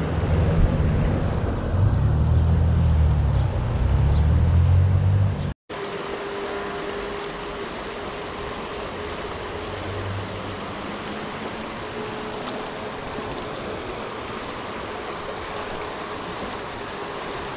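Creek water rushing steadily over rocks in a shallow riffle. For the first five seconds or so, wind buffets the microphone with a low rumble, then the sound drops out briefly at a cut and only the even rush of water remains.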